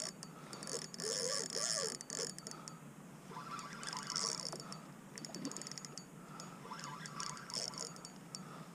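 Fishing reel clicking in short bursts of fast ticks while a hooked redfish pulls against the bent rod.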